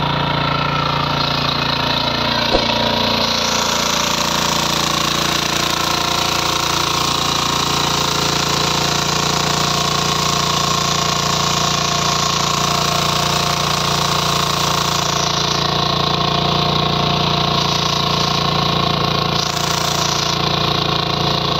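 Shrachi walk-behind power weeder's engine running steadily under load as the machine tills soil to form ginger beds. A single sharp knock comes about two and a half seconds in.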